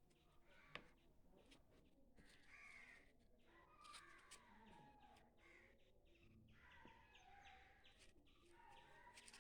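Near silence with faint, distant crows cawing now and then.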